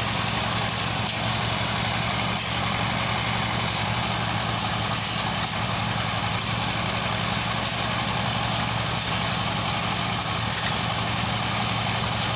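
A heavy engine running steadily at an even pitch and level, with no change in speed.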